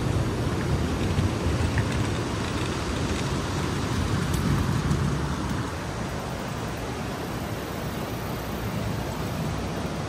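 Steady rushing of the Saluda River flowing over rocky shoals, a dense, even noise heaviest in the low rumble. It drops slightly in level about six seconds in.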